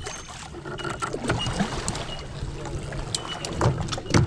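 Kayak being paddled: paddle strokes dipping and splashing in the water, with a run of short sharp knocks and one loud knock near the end.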